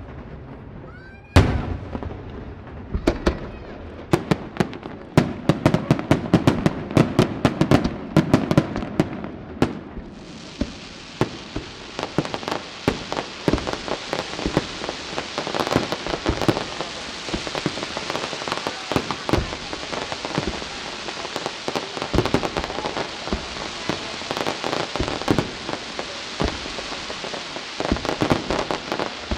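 Aerial firework shells bursting: a loud bang about a second and a half in, then a fast string of sharp bangs. From about ten seconds in, a dense, continuous crackling like heavy rain sets in, with pops through it.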